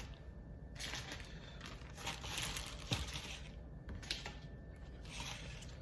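Packaging crinkling and rustling in short spells as it is handled, with one sharp click about three seconds in.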